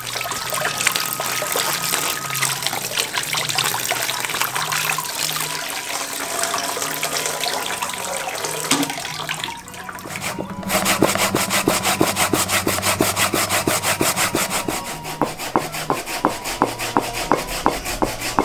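Hands washing and rubbing a colander full of small freshwater fish: wet rubbing and water trickling. About ten seconds in this gives way to quick, rhythmic scraping strokes in a plastic bowl.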